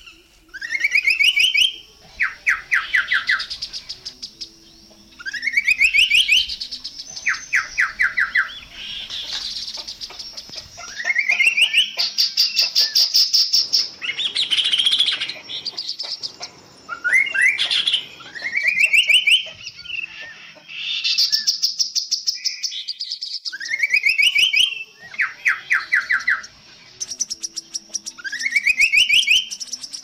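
Chestnut-capped babbler singing: a phrase repeated every five or six seconds, each a quick rising note followed by a fast trill, with higher rapid chattering notes between the phrases.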